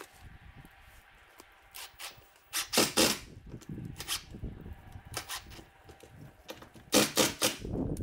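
Cordless drill driver driving screws through steel siding panels: two short bursts of sharp rattling clicks, about four seconds apart, with lighter clicks and taps in between.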